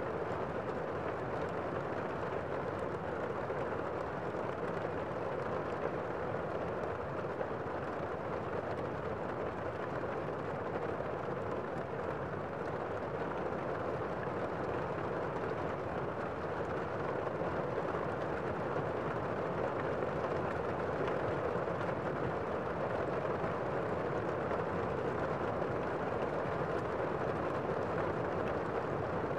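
Steady rain, an even, unbroken hiss.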